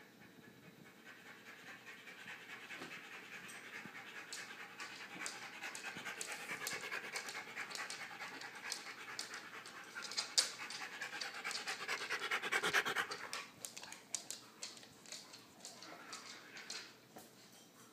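Siberian husky panting rapidly right at the microphone, growing louder as it comes close and fading away about three quarters of the way through.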